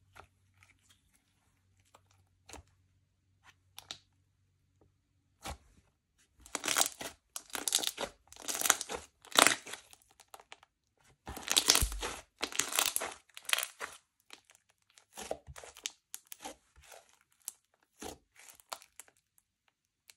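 Slime being kneaded and stretched by hand. A few faint clicks come first, then partway through a run of loud squishes lasts several seconds, easing off into quieter ones near the end.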